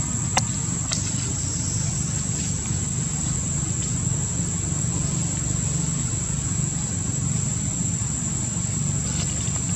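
Steady low rumble, like an idling engine, with a steady high-pitched drone above it. There is one sharp click about half a second in.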